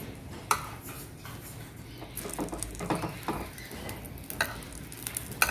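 Metal spatula scraping and tapping against a nonstick frying pan while a rolled egg-batter pancake is turned in hot oil, with a light sizzle underneath. There are sharp taps about half a second in and near the end, and a run of short scrapes in the middle.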